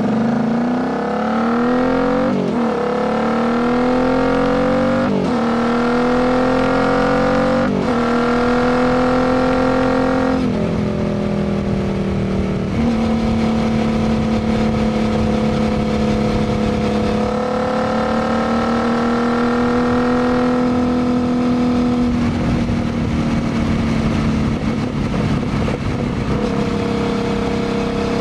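2019 Royal Enfield Continental GT 650's parallel-twin engine running through a Diablo full exhaust under acceleration. Its pitch climbs and drops sharply at three upshifts in the first eight seconds or so, then settles into a steady cruise with small rises and dips in engine speed.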